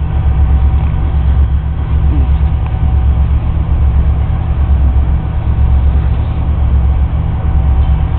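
Steady low rumble of a river tour boat underway, its engine running, with wind buffeting the microphone on the open deck.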